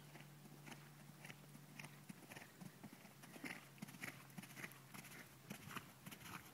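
Faint hoofbeats of a large ridden horse on a sand-and-gravel arena, a regular beat about two a second that grows louder in the second half as the horse comes closer.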